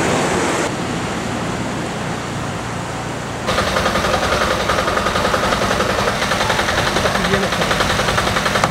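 A steady rushing noise, then, from about three and a half seconds in, a water tanker truck's engine and pump running with a fast, even pulse as water is pumped through a hose into a plastic storage tank.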